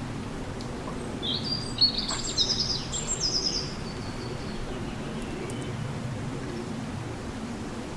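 A songbird sings one quick phrase of high chirps and trills, about one to four seconds in, over steady low background noise.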